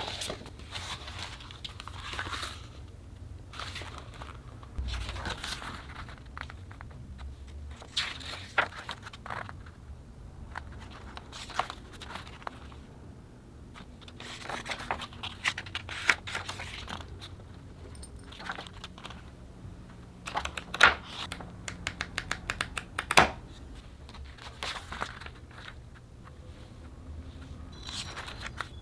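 Hands unwrapping and handling a merchandise package: packaging crinkling and tearing, with scattered taps and clicks. A quick run of sharp ticks and two loud clicks come about two-thirds of the way through.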